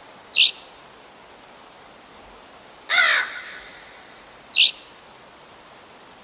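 Bird calls: a short high chirp, then about three seconds in a louder harsh call falling in pitch, then another short high chirp, over a steady outdoor hiss.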